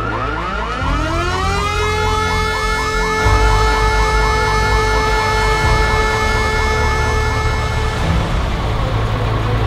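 Two emergency sirens sounding together: a fast warbling siren and a wailing siren that winds up over about two seconds and then holds one steady tone. Both cut off about two seconds before the end, leaving a low rumble.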